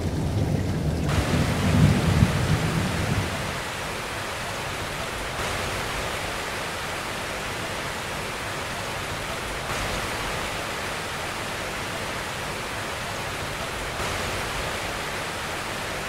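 Heavy rain falling steadily, with a low rumble of thunder that fades out about three seconds in.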